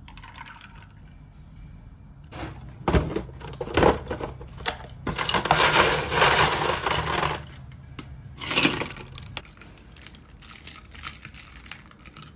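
Water running or pouring in a few bursts, the longest lasting a couple of seconds, with sharp knocks and clinks between them.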